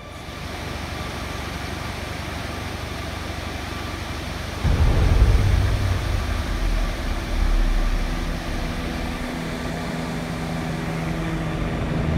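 Ocean surf washing in under the low drone of a helicopter overhead. The drone grows much louder about halfway through.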